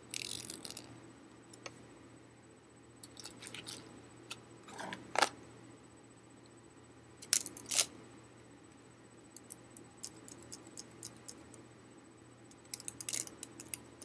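Fingers plucking the teeth of a plastic comb, a short rasping flutter at the start. Then a folding fan with wooden slats is handled: a few sharp clacks around the middle, and a run of light slat clicks as it is opened and folded near the end.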